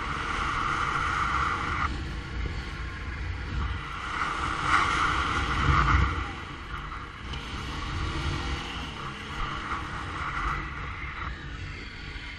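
ATV engine running under way, with wind buffeting the microphone. The sound swells and eases, loudest about five to six seconds in.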